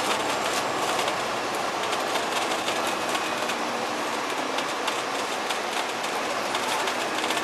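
Alexander Dennis Enviro500 double-decker bus running, heard from inside the cabin: the Cummins ISL8.9e straight-six diesel and Voith DIWA automatic gearbox give a steady drone. Interior fittings make a fast, continuous rattling and clicking over it.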